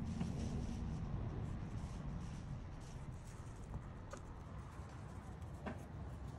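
Quiet handling noise at a workbench: a few faint clicks and taps, the clearest about four seconds and near six seconds in, over a low steady hum.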